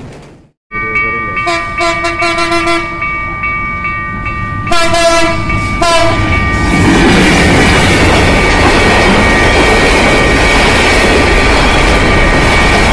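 Passenger train's locomotive horn sounding as it approaches: a string of short blasts, then one longer, louder blast about five seconds in. The train then passes close by: a loud, steady noise of wheels and coaches on the rails, with a thin steady high tone over it.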